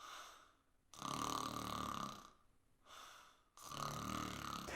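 Human snoring: two drawn-out breaths of about a second each, each with a short faint breath before it, the sound of a relaxed soft palate and uvula vibrating in the airflow.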